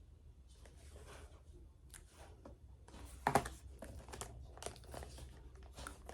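Faint crinkling and rustling of packaging being handled, with a sharper burst of rustles about three seconds in.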